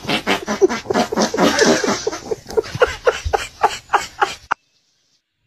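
Loud, hearty laughter in quick repeated bursts, about four or five a second. It cuts off abruptly about four and a half seconds in.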